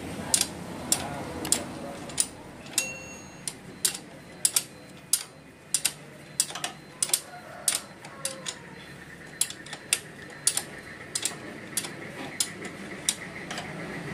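Socket ratchet wrench clicking in quick, uneven strokes, about two to three clicks a second, as the 17 mm oil drain bolt is threaded back into a Honda Astrea Grand's engine.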